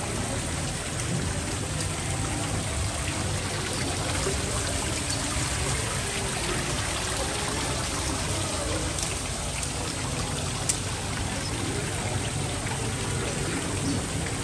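Steady rushing noise of running water, with faint voices in the background and a single sharp click about ten seconds in.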